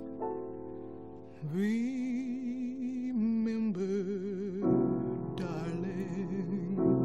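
Background music: piano chords, then, about a second and a half in, a singer holding long notes with vibrato over the piano.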